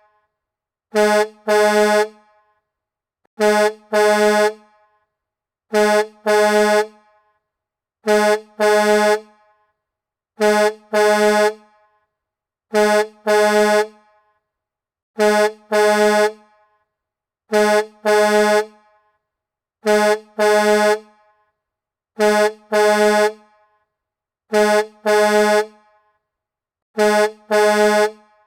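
Semi-truck horn sounding in a repeated double honk: a short blast, then a longer one, about every two and a half seconds, on one steady pitch with silence between the pairs.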